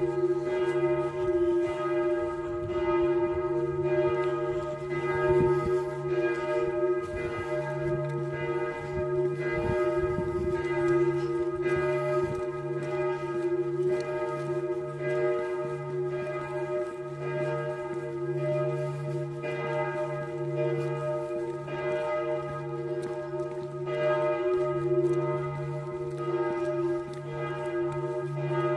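Church bells ringing continuously, struck over and over so that each stroke's ringing runs into the next.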